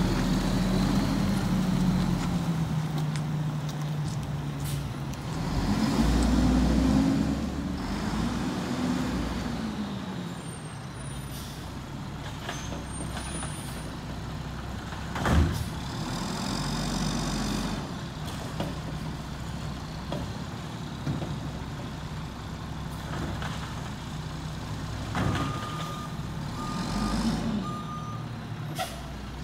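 Diesel engine of a Mack MR garbage truck running and revving up and down as the truck drives off and works down the street. A single sudden sharp sound comes about halfway through, and a few short reversing beeps sound near the end.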